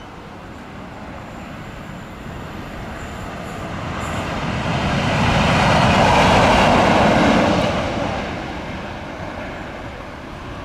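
Class 90 25 kV electric locomotive running light engine past at speed: the rumble of its wheels on the rails and the rush of its passing swell up, are loudest about six seconds in as it goes by, then fade away.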